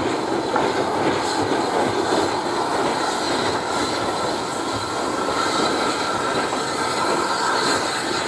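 Southern Railway Battle of Britain class steam locomotive 34053 Sir Keith Park running past with its train: a steady rushing rumble of the engine and rolling carriages. A faint high wheel squeal joins in about three seconds in.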